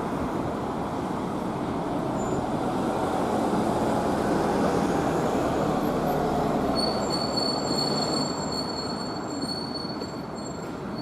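Keifuku Randen tram running past, its running noise swelling and then easing off, with a high, thin wheel squeal in the second half.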